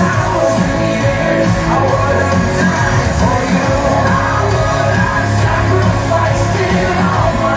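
Loud amplified music with a singing voice over a strong, steady bass.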